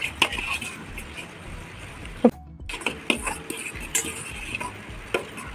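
Fork beating raw eggs in a stainless steel bowl, clinking and scraping against the metal in irregular taps, with a short gap about two seconds in.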